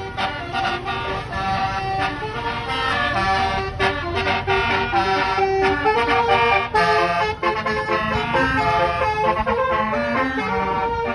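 Basuri bus horn, a multi-tone air horn, playing a melody of quickly changing notes over steady low vehicle noise.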